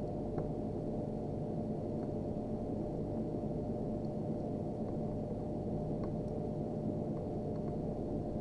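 Steady low background hum with a faint constant tone, and a few faint light ticks scattered through it.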